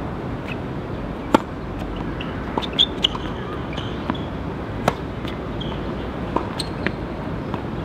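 Tennis rally: sharp racket-on-ball hits roughly every one and a half to two seconds, with fainter ball bounces on the court between them and a few brief high squeaks, over steady background noise.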